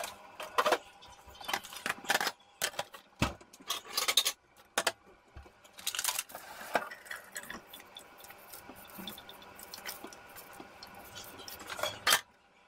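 Dishes and fruit bowls handled on a kitchen counter: a string of short clinks and knocks of crockery, busiest in the first half, then quieter, with one loud knock near the end.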